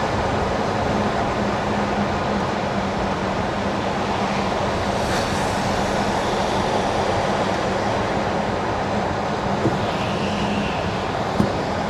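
Car tyres running on wet asphalt: a steady road-noise hiss over a low, even hum, with two light clicks near the end.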